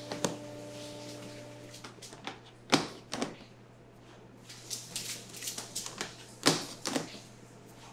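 Factory ambience: a steady low machine hum, with a higher machine tone that stops about two seconds in, and scattered sharp knocks and small clicks, four of them louder than the rest.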